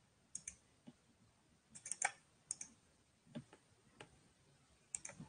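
Light, irregular computer keyboard clicks in small clusters with pauses between them, over faint microphone hiss.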